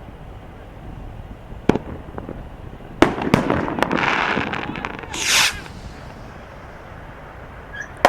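Consumer aerial fireworks going off: a sharp bang a little under two seconds in, then another bang about three seconds in followed by a quick run of cracks and a couple of seconds of crackling hiss. A short hissing burst comes around five seconds in, and a final sharp bang at the very end.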